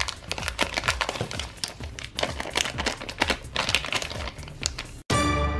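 Thin plastic bag crinkling and rustling as hands squeeze moist blue Crazy Sand out of it. About five seconds in it cuts off abruptly into background music: a ringing chord that slowly fades.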